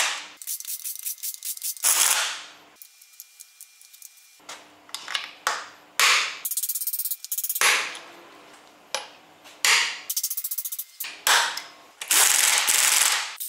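Pneumatic impact wrench running bolts down on a ZF 16S 1820 TO truck gearbox housing: a series of short, loud, rapid hammering bursts, about half a dozen, with fainter fast clicking between them.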